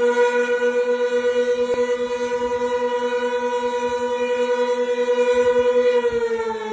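Outdoor tornado warning siren sounding a steady tone, then starting to wind down, its pitch sliding slowly lower about six seconds in.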